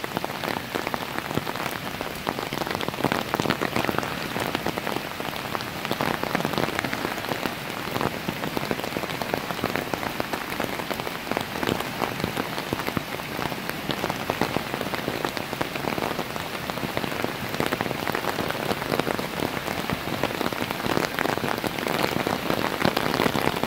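Steady rain falling, with many separate drops striking close by over an even hiss.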